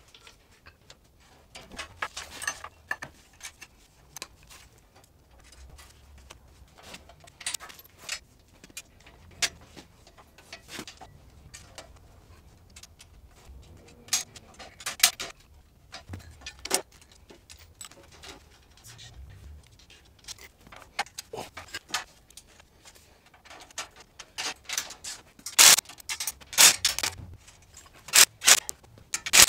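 Hand tools and fasteners on a steel go-kart frame: scattered metallic clinks and clicks, then a denser run of loud sharp clicks near the end as a nut is turned with a combination wrench.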